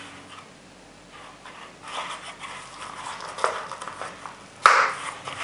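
Black nylon belt holster being handled and folded by hand, its fabric rustling and scuffing in irregular bursts, with one sharp click near the end.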